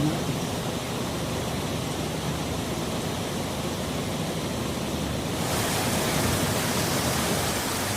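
Water rushing steadily into a canal lock as it fills. It gets louder and brighter about five and a half seconds in.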